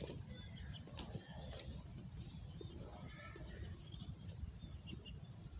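Faint dusk ambience: a steady high-pitched insect whine with scattered short bird chirps over a low rumble.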